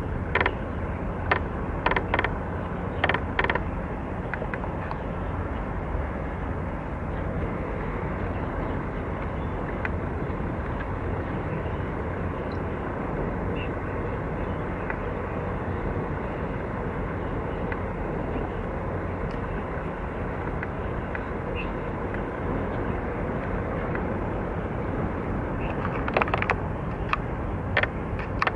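Steady low rumble of a large container ship passing close by. A few short, sharp mechanical clicks come in the first few seconds and again near the end.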